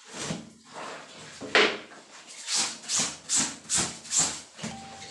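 A heavy wet blanket being hand-scrubbed and worked in a plastic washtub: a run of rhythmic wet scrubbing strokes, about two or three a second, with water splashing and a louder stroke about one and a half seconds in.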